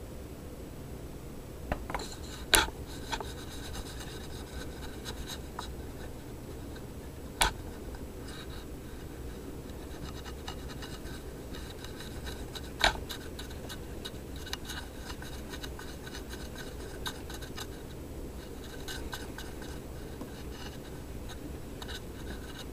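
Scratchy handling noise: fingers scraping and tapping on the brushed stainless-steel back of an iPod touch as it is turned in the hand. There are a few sharp clicks, the loudest about two and a half seconds in.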